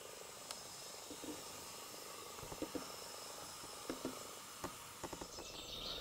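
Quiet steady hiss with a handful of faint, scattered clicks and light taps.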